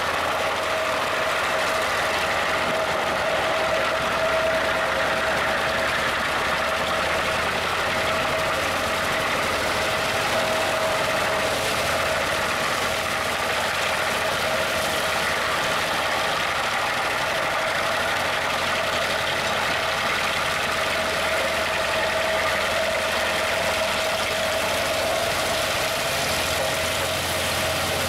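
Home-made wood chipper running steadily under load, its engine and spiked feed roller chewing through thin wooden slats. A constant whine runs over the engine noise.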